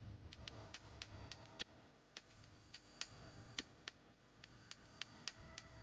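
Faint, irregular light clicks and ticks, a few a second, from small parts and tools being handled as the amplifier's cover is put back on.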